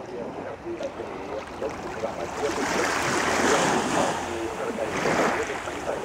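Small waves lapping on the shore of a calm sea, the wash swelling and easing a couple of times.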